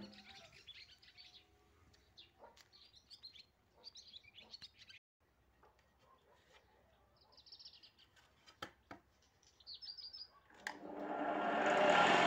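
Small birds chirping on and off. About ten and a half seconds in, a homemade belt-driven woodworking machine's electric motor switches on and spins its drum up: a rising, dense running noise that becomes the loudest sound.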